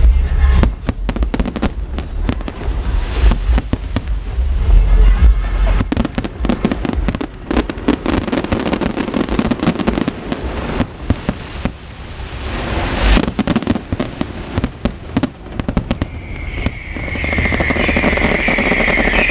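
Aerial fireworks bursting in rapid succession: a dense run of sharp bangs and crackles over deep thumps. A louder steady hissing builds over the last few seconds.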